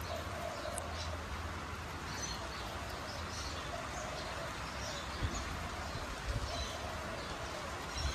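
Faint birds chirping over a steady low background hum, with a few soft knocks from small metal parts being handled a little past halfway and again near the end.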